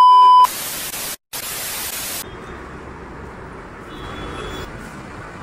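A loud, steady high test-tone beep of a colour-bars video transition cuts off about half a second in. Two bursts of TV-static hiss follow, with a brief break between them. Then comes quieter, even outdoor background noise with traffic.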